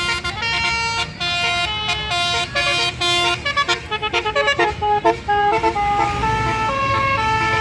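Bus 'basuri' telolet horn playing a tune: a quick run of held horn notes that step up and down in pitch, over a low vehicle rumble.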